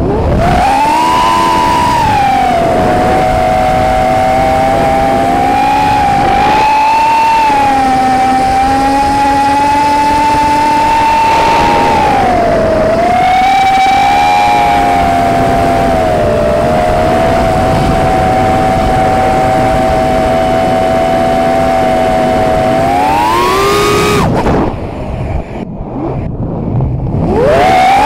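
The whine of the four Racerstar BR2205 2600KV brushless motors on an FPV racing quadcopter, recorded raw by its onboard Runcam 3 camera. It is a loud, shrill whine whose pitch dips and rises with the throttle. Near the end the pitch climbs, the motors drop off to a low level for about two seconds, and then they spool back up.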